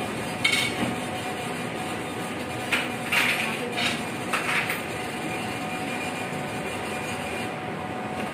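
Shop ambience: a steady background hum of the room, with a handful of short clinks and clatters during the first half.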